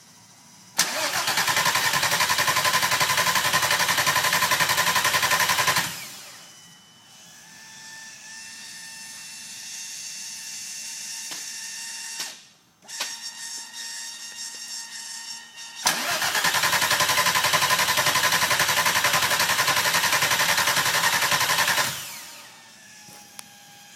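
Volkswagen 24-valve VR6 engine cranking on the starter motor without firing, in two bursts of about five seconds each with a quieter steady hum and a few clicks between them. It turns over but does not catch, which the owner puts down to no spark from the coil packs.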